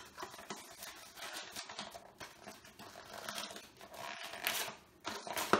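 Fingerlings toy box being opened by hand: cardboard and plastic packaging scraping, tearing and crinkling unevenly, louder about four seconds in, with a sharp click near the end.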